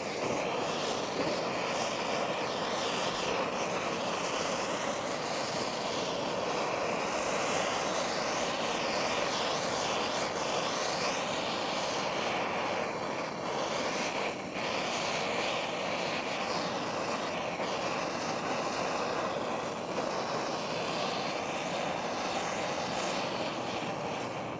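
Handheld gas torch burning with a steady rushing hiss of flame that keeps an even level throughout.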